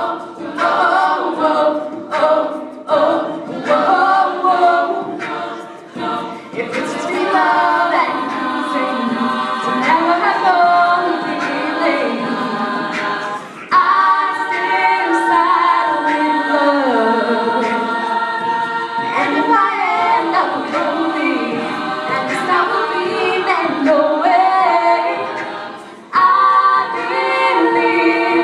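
All-female a cappella group singing in close harmony, live. Short rhythmic hits mark the first few seconds, then the voices hold sustained chords, with parts gliding and a brief drop in the sound about halfway and again near the end.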